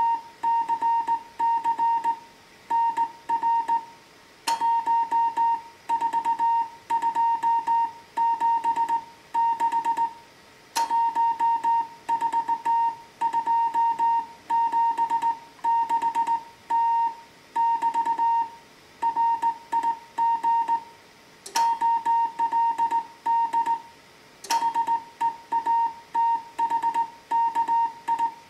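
Slow Morse code (CW) from a Heathkit HW-101 transceiver: a single high-pitched beep keyed on and off in dots and dashes over a low receiver hiss. Four sharp clicks break in along the way.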